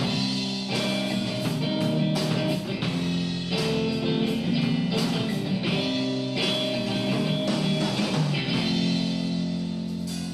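Instrumental passage of a rock song: sustained guitar chords with a steady drum beat.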